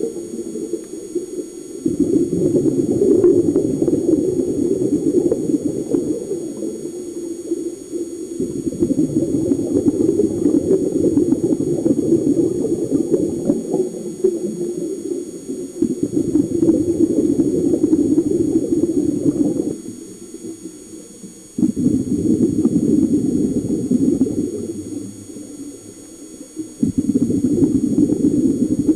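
Scuba regulator exhaust bubbles heard underwater, a low bubbling rush in long bursts of several seconds with short quieter pauses between, following the diver's breathing.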